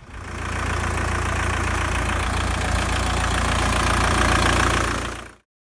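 A 1.9-litre four-cylinder turbo-diesel engine idling steadily, with a hydrogen-oxygen carbon-cleaning hose feeding its intake; the sound cuts off shortly before the end.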